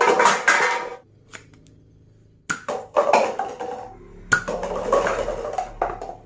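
Hard plastic toy gun parts being handled and knocked together: clattering and clicking in three bursts, the middle one after a short pause.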